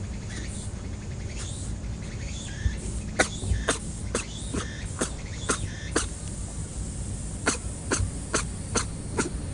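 A rabbit sneezing again and again: short, sharp sneezes in quick runs of about two a second, with a break of a second or so after the middle, over a steady low rumble.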